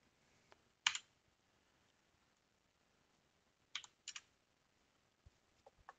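A few separate computer keyboard keystrokes: one key press about a second in, then two quick presses about four seconds in, with a few faint ticks near the end. The keys are Enter to run an apt install command, then 'y' and Enter to confirm the install prompt.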